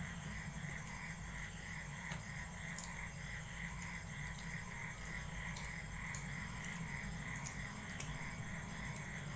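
Steady, rhythmic chirping of calling animals, about three pulses a second, over a low hum, with a few faint clicks.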